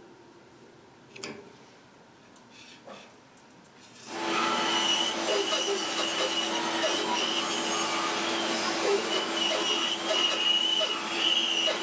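A few faint tool clicks as the bandsaw's upper guide bearings are adjusted, then, about four seconds in, the bandsaw is heard running with a steady hum and whine while a block of wood is fed through the blade for a test cut.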